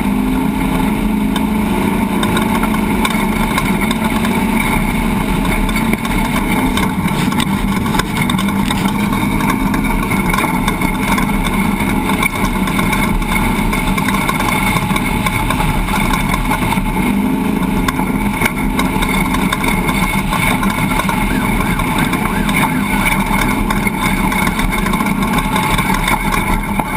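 Steady mechanical drone with several constant hum tones over a low rumble.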